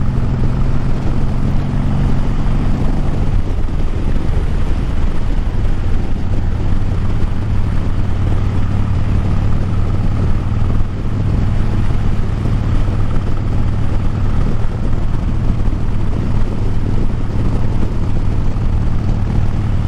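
Harley-Davidson Breakout's V-twin engine running at a steady cruising speed on the move, under a constant rush of wind and road noise.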